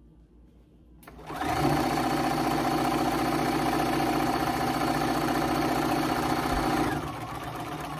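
Bernina electric sewing machine stitching a seam through cotton fabric. It starts up about a second in, runs at a steady speed, then slows down near the end.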